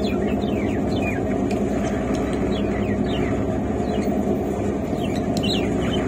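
Caged pet parrots, cockatiels and a budgerigar, chirping in short calls that fall in pitch, coming in a few brief clusters. Under them runs the steady rumble of the train in motion, heard from inside the coach.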